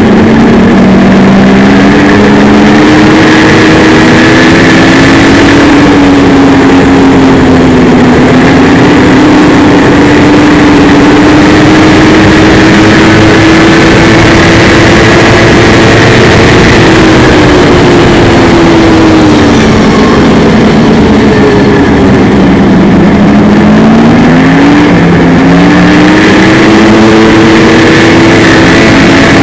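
Snowmobile engine running loud while riding a snow trail, its pitch rising and falling with the throttle. It drops lower about a quarter of the way in and again about three-quarters through, then climbs quickly.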